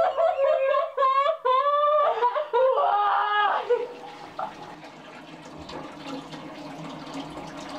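A woman wailing and sobbing loudly, her voice wavering and sliding in pitch, dies away about four seconds in. A steady trickle of water splashing into a toilet bowl follows.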